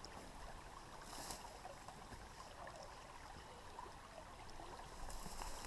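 Faint, steady running water of a small, shallow creek.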